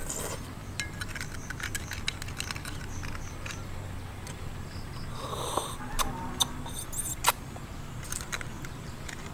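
A metal spoon clicking and scraping against food as it is scooped out and eaten, with faint chewing and mouth sounds. The sharpest clicks come a little past the middle.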